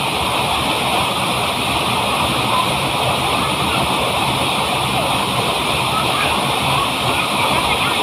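Waterfall pouring steadily into its plunge pool, a heavy flow swollen after rain, with splashing from people wading in the pool.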